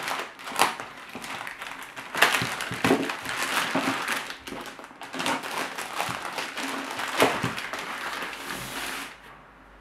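Plastic courier mailer bag crinkling and rustling as it is torn open and pulled off a cardboard box, in irregular crackles that die down near the end.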